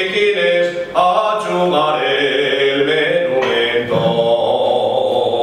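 A man singing solo without accompaniment, holding long notes that waver and bend in pitch, with short breaths between phrases.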